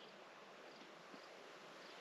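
Near silence: faint forest ambience with faint, high insect chirps about twice a second.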